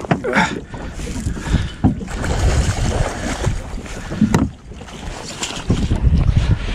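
Wind buffeting the microphone on an open boat, over choppy water, with a sharp knock a little after four seconds in.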